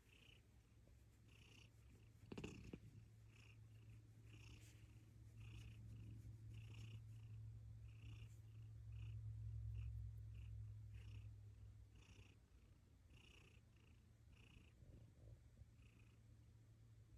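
Domestic cat purring steadily, a low rumble that swells louder about halfway through, with a brief knock about two seconds in.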